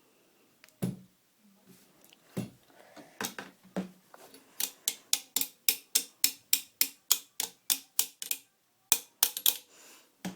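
Sharp clicks and knocks from handling Mosin-Nagant rifle parts: a few scattered knocks, then a fast even run of about five clicks a second for some four seconds, and a last short cluster near the end.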